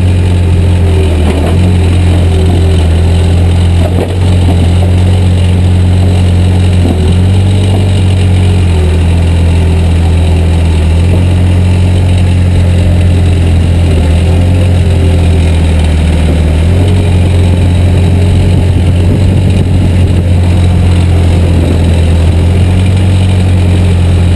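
Backhoe's diesel engine running loud and steady while digging, its note shifting slightly now and then, with a few faint knocks about one, four and seven seconds in.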